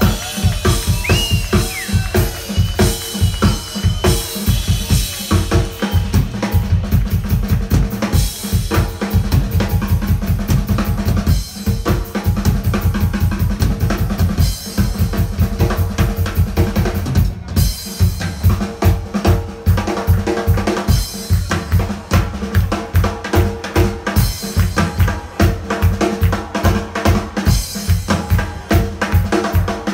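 A live blues band playing a song: a drum kit beats a steady driving rhythm, with bass drum and snare prominent, under electric guitar and bass guitar.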